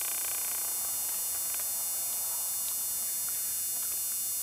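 Steady hiss and electrical hum from an old camcorder tape recording, with several fixed high-pitched tones running through it.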